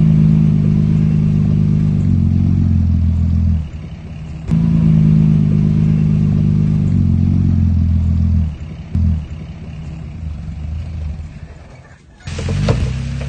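Bulldozer's diesel engine working hard in two long pushes of about four seconds each, its note dipping slightly near the end of each, with quieter running in between. Near the end comes a sudden burst of clattering.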